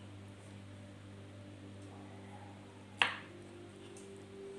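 A kitchen knife knocking once on a wooden cutting board about three seconds in while a chewy boiled chicken meatball is cut, over a faint steady hum.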